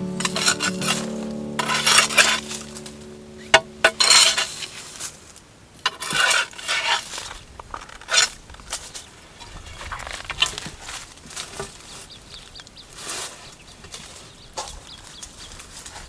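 Machete blade scraping and chopping into soil and roots, in irregular strokes with sharp knocks and clinks. Background music fades out in the first few seconds.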